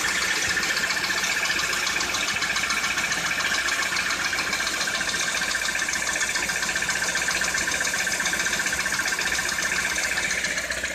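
2013 Citroën C4 engine running steadily with a fast, even knocking tick through it, the engine knock that is the owner's complaint.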